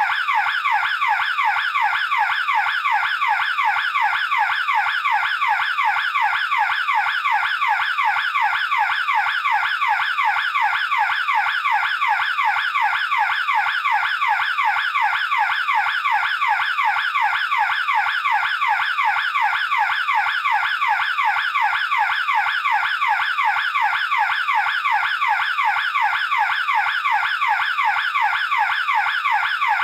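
Burglar alarm siren sounding continuously: a loud, fast warble of several even sweeps a second, unchanging.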